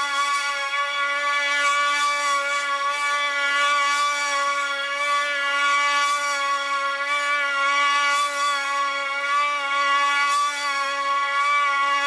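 Lawnmower running flat out at its top speed while cutting and collecting grass. It makes a steady, high hum with no change in pitch.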